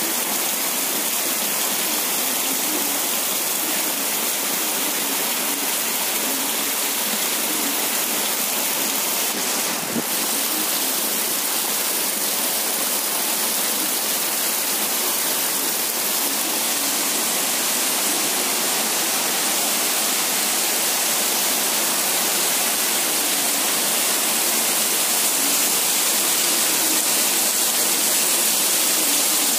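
Heavy tropical downpour: a dense, steady rain hiss that grows slightly louder near the end, with one brief knock about ten seconds in.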